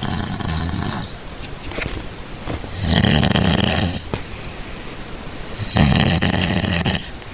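A sleeping woman snoring loudly with a bubbling rattle from mucus in her nose. There are three snores about three seconds apart, each lasting about a second: a weaker one at the start and two louder ones.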